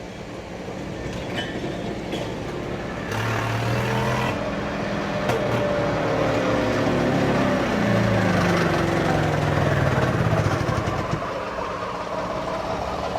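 EzGo Marathon golf cart's two-stroke gas engine running while the cart is driven, its pitch climbing about three seconds in and falling away again near ten seconds. This is a test run after its reed valve gasket leak was fixed, and it holds speed without the choke.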